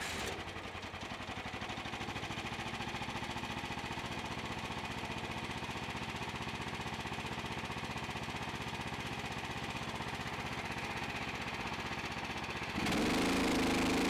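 Briggs & Stratton XR Professional 420cc 13.5 hp single-cylinder engine on a wood chipper running steadily. It gets louder near the end.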